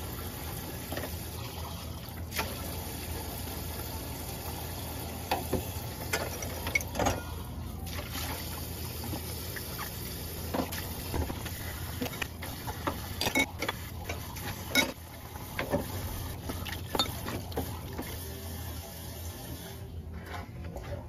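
Water running into a stainless-steel sink full of glasses and cutlery during washing-up, with a steady low hum underneath and occasional sharp clinks scattered through.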